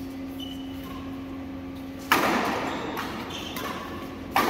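Two sharp badminton racket hits on the shuttlecock, about two seconds in and again near the end, each ringing out in the echo of a large indoor hall, over a steady low hum.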